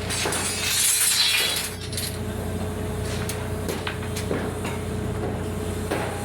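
Construction-site work noise: a steady machine hum with scattered clinks and knocks, and a loud hiss lasting about a second, starting about half a second in.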